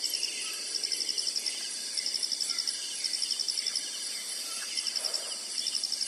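Insects calling in a chorus: a steady high buzz with a short rapid pulsed chirp repeating about once a second.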